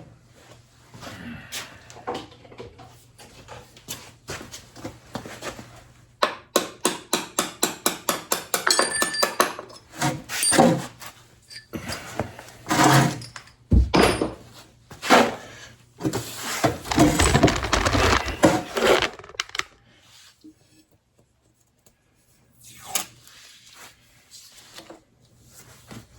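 Hand tools working on a motorcycle's front fork and axle: metal clanks and knocks, and about six seconds in a ratchet wrench clicking rapidly and evenly for about three seconds. A denser stretch of clatter follows, then only a few faint knocks.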